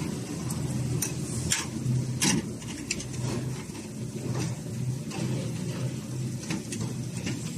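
Electric-motor-driven concrete mixer pump running, a steady low hum with scattered clicks and knocks.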